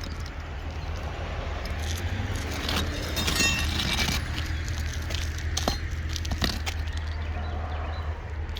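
Asphalt roof shingles being handled and lifted: scattered light clicks and scrapes, with a brief burst of rattling clicks about three and a half seconds in, over a steady low rumble.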